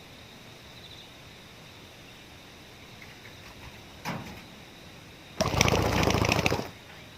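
A loud burst of rapid rustling lasting just over a second near the end, after a short softer rustle, over a faint steady high-pitched tone.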